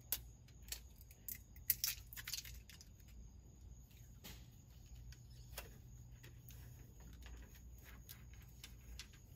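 Faint scattered clicks and crinkles of a protective plastic film being picked at and peeled off a BlackVue dash cam handled in the hands. The clicks are mostly in the first couple of seconds, with a few more around the middle, over a faint low hum.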